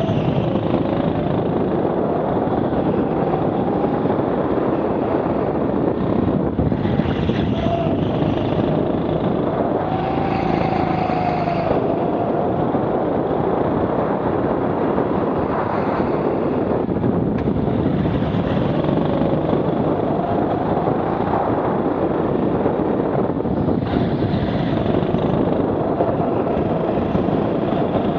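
Rental go-kart's engine revving up and falling back as the kart is driven through the corners, its pitch rising and dropping every few seconds, over a steady rush of air and tyre noise.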